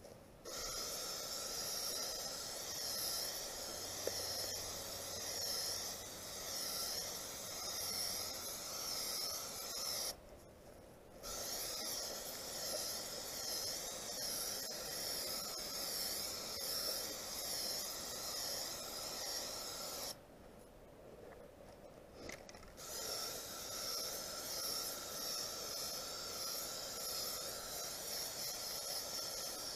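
Aerosol spray can of polyurethane hissing in three long sprays, broken by short pauses about ten and twenty seconds in.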